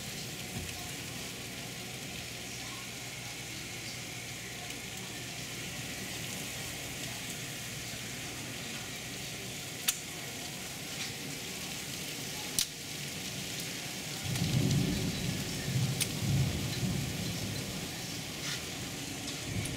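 Heavy rain pouring steadily, heard through a window, with two sharp clicks partway through. A low rumble of thunder rises in the last third and lasts about three seconds.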